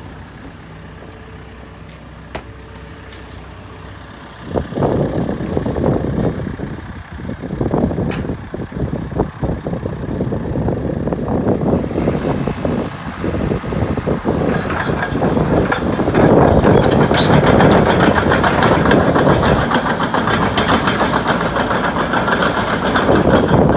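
Diesel engine of a JCB JS130LC tracked excavator, running quietly at first, then much louder about four seconds in as the machine is worked, and louder again near the end.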